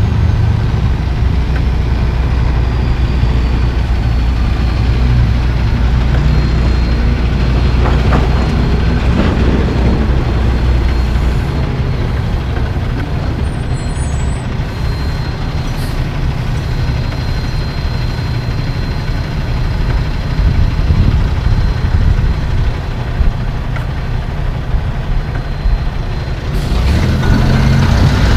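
Heavy diesel semi truck (International LoneStar) pulling two curtain-side trailers past close by, its engine a steady low hum with tyre and road noise. Near the end the sound gets louder as a second tractor-trailer comes close.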